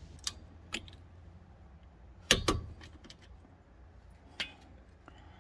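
A few short metallic clinks and taps of hand tools being handled, the loudest a double clink about two and a half seconds in.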